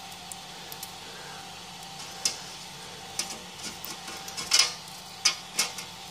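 Fingers handling a rough, lumpy ABS 3D print, making scattered small clicks and crackles of hard plastic, the loudest about four and a half seconds in, over a faint steady hum.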